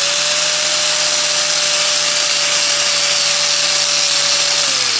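Angle grinder with a wire wheel running at full speed, a steady whine over a loud scrubbing hiss as the wire brush cleans slag and scale off a fresh stick-weld bead. Near the end the grinder is switched off and its whine begins to fall as it winds down.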